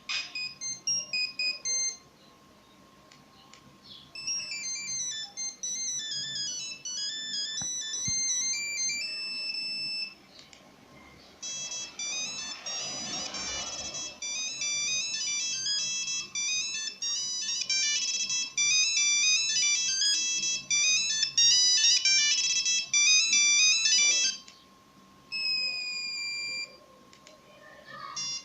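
Nokia 1100 monophonic ringtones playing one after another: fast melodies of single high beeping notes, several different tunes, each broken off by a pause of a second or two.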